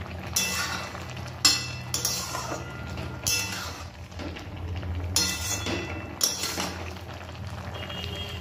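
Metal spatula scraping and clinking against a metal kadai while stirring a wet mix of chopped banana flower, potatoes and chickpeas simmering in a little water. There are about seven irregular strokes, each with a short metallic ring.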